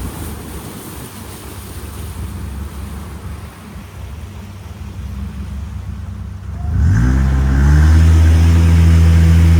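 A boat engine idles low, then revs up about seven seconds in and runs loud and steady at higher power.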